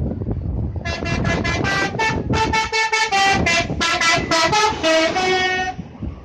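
Bus telolet horn playing a quick tune: a fast run of short tooting notes, about four a second, stepping up and down in pitch. It starts about a second in and lasts nearly five seconds, over the low rumble of traffic.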